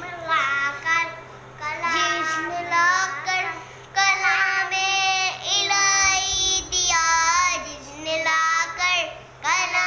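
Young children singing a naat (Urdu devotional song) in high voices, without instruments, in held phrases with short breaks between lines.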